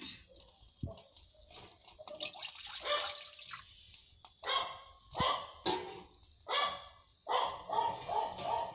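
A dog barking repeatedly, some barks coming in quick runs of three or four.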